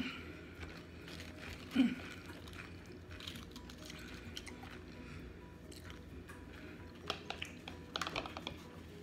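Quiet eating sounds: chewing, and light clicking and crackling of cheese-covered tortilla chips as they are picked from the plate. A cluster of louder clicks comes about seven to eight and a half seconds in.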